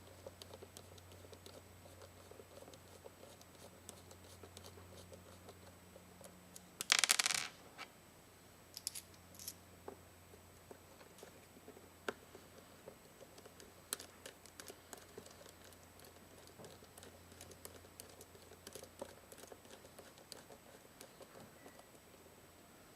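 Small clicks and scratches of parts and a small tool being handled while reassembling a vape mod, with a brief loud rustling clatter about seven seconds in and two shorter ones a couple of seconds later. A faint low hum runs under it and fades out past the middle.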